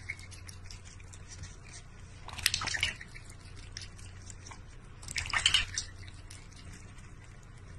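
Water splashing and dripping in a steel bowl as a duck dips its bill and a cat drinks from it: two short splashy bursts, one about two and a half seconds in and another about five seconds in, over a faint low hum.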